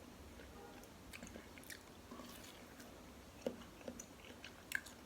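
A person chewing food close to the microphone, faint, with a few soft, brief wet mouth clicks.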